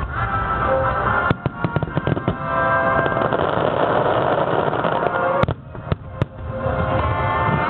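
Fireworks shells bursting with sharp bangs, several in a cluster early on and one loud one about five and a half seconds in, with a dense crackling stretch in the middle, over music playing throughout.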